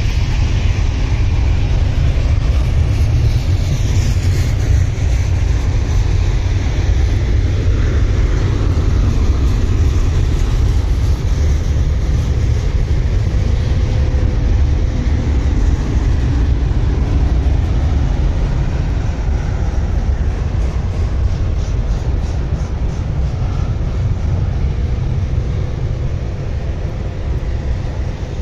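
Intermodal freight train climbing a mountain grade: a loud, steady deep rumble, with a faint steady tone over it.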